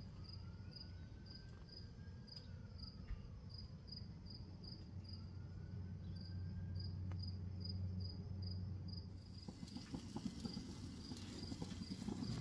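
A cricket chirping at an even pace, about three chirps a second, over a steady low hum. A rushing noise comes up in the last few seconds.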